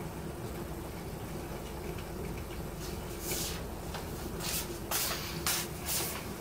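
A plastic pouch crinkling as it is cut open with scissors: five or six short rustles from about three seconds in, over a steady low hum.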